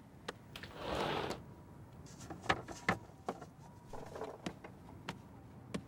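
A glass display cabinet door sliding, a short scrape about a second in, followed by a scatter of light clicks and knocks as small concrete fragments are handled. The sharpest knock comes about two and a half seconds in.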